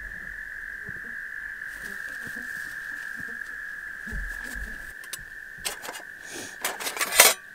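A steady, high-pitched chorus of small calling animals runs on throughout. From about five and a half seconds in, the stainless steel panels of a twig stove clink and clatter as they are handled, loudest near the end.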